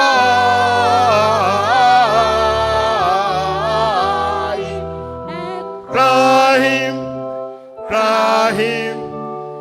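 Hymn singing over sustained instrumental accompaniment: a long held note with vibrato that fades about four seconds in, then two short sung phrases over steady chords.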